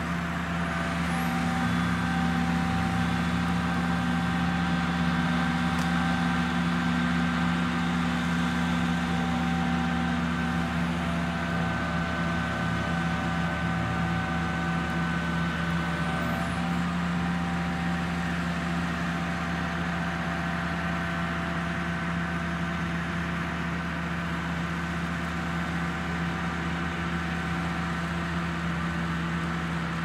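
Truck-mounted crane's engine running at a steady speed, a constant drone.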